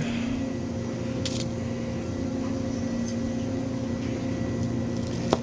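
Steady machine hum from kitchen equipment, a motor or fan holding a constant low tone, with one sharp click near the end.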